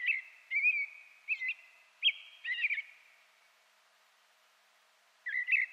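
Songbird singing a run of short chirped notes, about two a second, for about three seconds, then pausing and starting again near the end.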